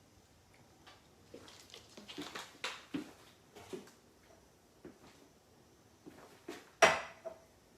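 Scattered light taps, clicks and short rustles of objects being handled on a table, with one sharp knock about seven seconds in.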